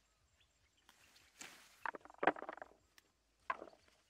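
Leaves and twigs of a leafy bush rustling and crackling as hands push through and part its branches. The sound comes in a few short bursts, the loudest about two seconds in, with another near the end.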